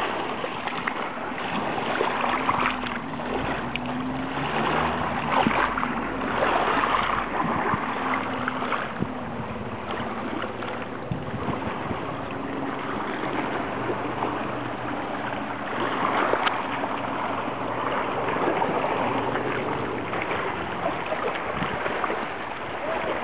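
Small sea waves washing over seaweed-covered shore rocks: a steady sloshing and splashing that rises and falls every few seconds.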